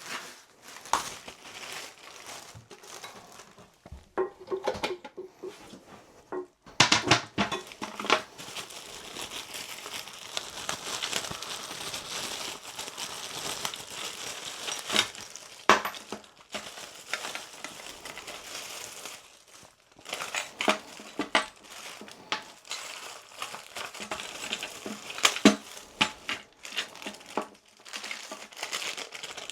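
Packaging crinkling and rustling as bidet parts are unwrapped and handled, with sharp clicks now and then.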